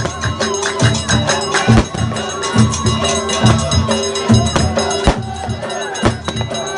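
Traditional percussion music: drums beating a steady repeating rhythm with quick sharp strokes, and a few louder sharp strikes every couple of seconds.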